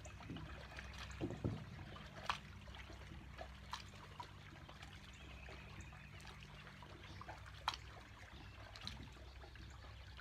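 Faint water trickling and lapping over a steady low hum, with a few sharp little clicks scattered through.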